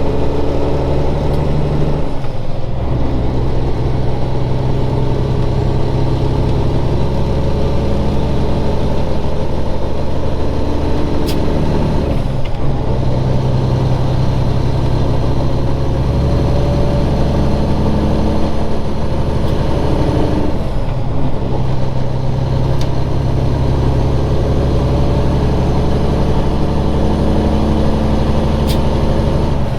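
Heavy truck's Cummins Signature Series inline-six diesel pulling steadily, with three brief drops in the engine note where the driver shifts gears, each time picking back up at a new pitch.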